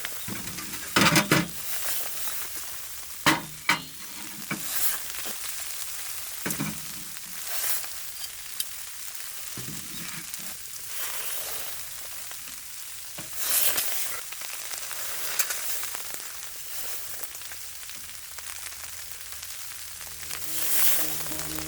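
Food frying in a pan with a steady sizzle, broken by several short, louder knocks, as if of utensils stirring in the pan.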